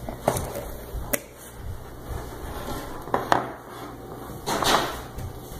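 Sharp clicks and knocks as a glass jar with a metal lid and other condiment bottles are handled and set down on a kitchen countertop, four of them spread through the first three and a half seconds, then a short scraping rustle about four and a half seconds in.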